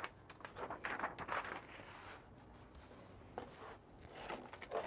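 Light rustling and scraping of a sheet of paper being moved across a wooden desk, with handling noises from a gloved hand, in short scattered bouts.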